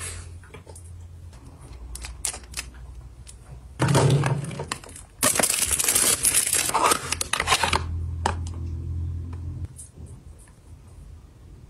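Thin clear plastic bag crinkling and rustling as it is torn open and pulled off a skincare bottle. A few small clicks come first, then a short burst of handling, and the loudest crinkling falls in the middle before it tapers off.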